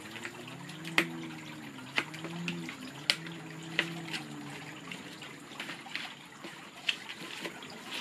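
Water trickling steadily, with sharp clicks and crackles, about one a second, as stiff pinwheel sheets are handled and folded. A faint low wavering hum runs under the first half.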